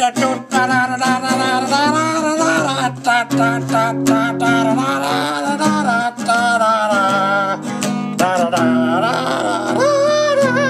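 A man singing while strumming an old Yamaha acoustic guitar, his voice holding long, wavering notes over the chords.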